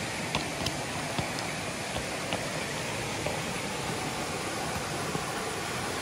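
Steady rush of water running over the rocks of a forest stream below a waterfall, with a few faint ticks in the first second.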